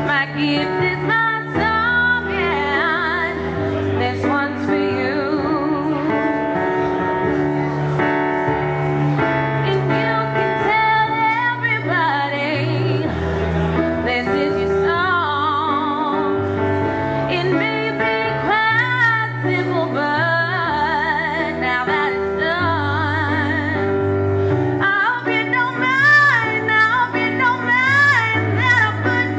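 A woman singing live into a microphone, her held notes wavering with vibrato, over instrumental accompaniment that holds long low notes changing every few seconds.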